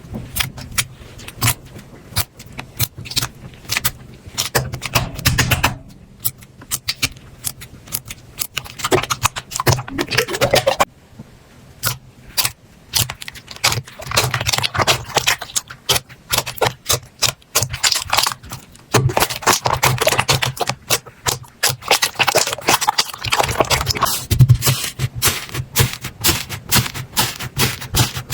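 Slime being squeezed and poked by hand: rapid runs of small clicks, pops and squelches, with a couple of brief pauses.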